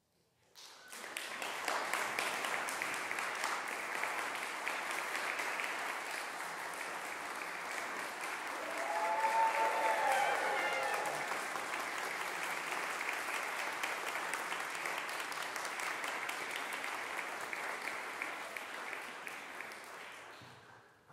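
Concert audience applauding, starting about half a second in and swelling to its loudest around the middle, with a short pitched voice, a cheer, rising above the clapping there. The applause then cuts off abruptly at the end.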